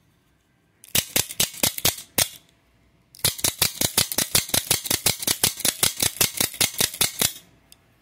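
Taiwan-made Lightning out-the-front (OTF) automatic knife being fired repeatedly, its spring-driven blade snapping out and back with a sharp metallic click on each stroke. A quick run of about eight clicks comes first, then after a short pause some thirty more at about seven a second.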